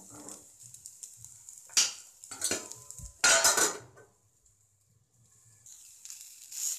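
A wooden spatula stirring chopped green beans in a kadai, then a steel lid clattering against the pan, with the loudest clanks about two to three and a half seconds in. The frying sizzle comes up again near the end.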